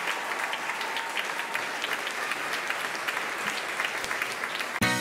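Audience applauding steadily. Right at the end it cuts to music with strummed guitar.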